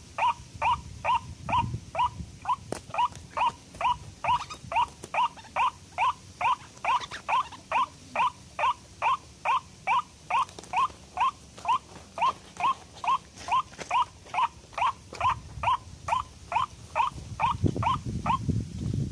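White-breasted waterhen (ruak-ruak) call used as a trapping lure, a sweeping downward note repeated very regularly about twice a second. It stops near the end, and rustling of handling begins.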